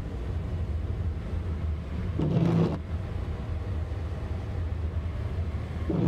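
Steady low rumble of engine and tyre noise inside the cabin of a vehicle driving on a snow-covered highway. About two seconds in there is a brief low hum lasting about half a second.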